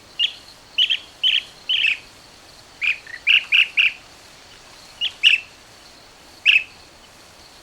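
Blue-tailed bee-eater calling: about a dozen short, high chirps, spaced irregularly and sometimes coming three in quick succession.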